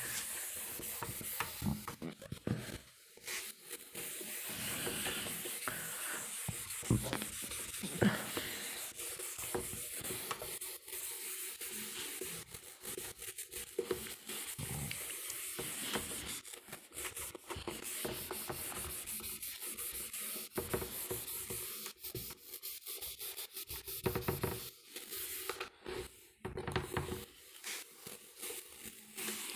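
A handheld eraser rubbing across a whiteboard in repeated wiping strokes, clearing off marker writing.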